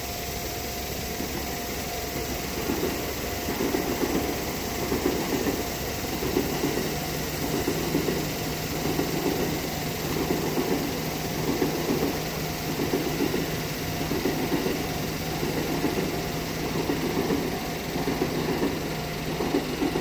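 A train passing at a Japanese level crossing, its wheels clattering rhythmically over the rail joints from about two seconds in. Under it the crossing alarm rings on a steady tone, and a low hum comes in about six seconds in.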